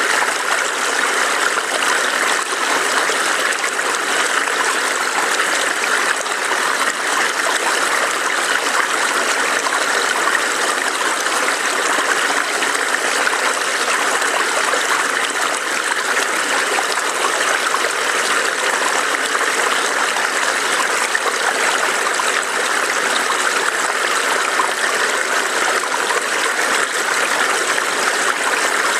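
Small forest stream burbling steadily over rocks, a continuous rush of running water.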